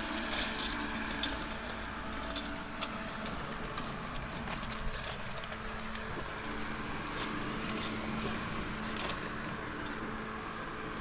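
Luba 5000 AWD robotic lawn mower's electric motors running with a steady low hum as it drives and cuts over grass, with a few faint ticks.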